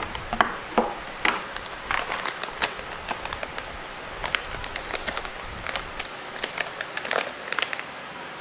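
Foil coffee bag crinkling and crackling in quick, irregular bursts as it is handled and its folded top is worked open.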